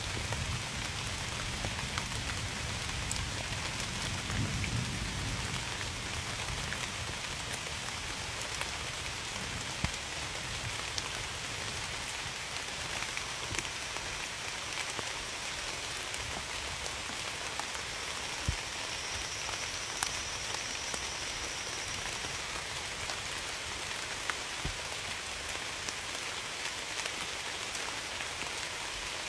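Steady rain falling, a constant hiss with many separate drops ticking on a hard surface. A low rumble sits under it in the first five seconds or so.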